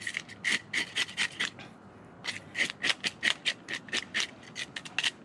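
A hand fish scaler scraping the scales off a striped bass in quick rasping strokes, about three or four a second, with a short pause about two seconds in.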